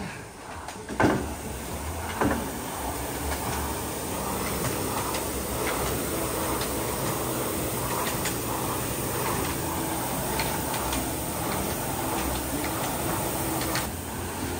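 Air-resistance rowing machines and a ski ergometer in use: their fan flywheels give a steady whoosh. Two short knocks come about one and two seconds in as the machines get going.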